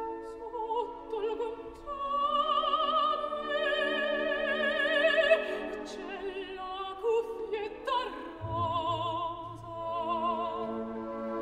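Operatic music: a singing voice holds long notes with wide vibrato over orchestral accompaniment, and a low sustained note joins about eight seconds in.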